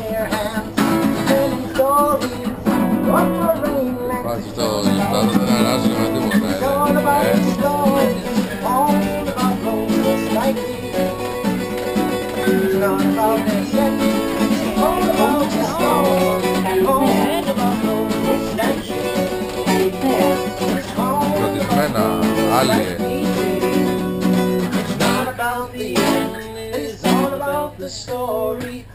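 Two guitars, an acoustic and a second guitar, playing a song together live inside a metro train carriage.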